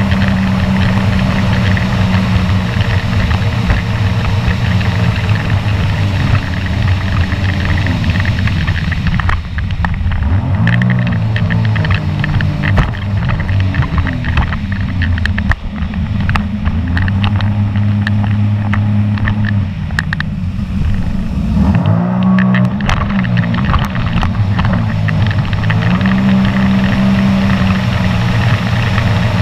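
Sea-Doo personal watercraft engine running at speed. Its pitch dips and climbs back twice, with water slapping and spraying against the hull.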